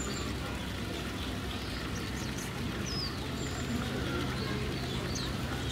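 Outdoor ambience: a steady low hum under an even background noise, with short high bird chirps and whistles scattered through, including one falling whistle about three seconds in.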